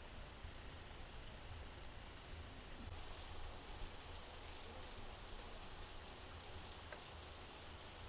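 Faint, steady outdoor background hiss with a low rumble underneath.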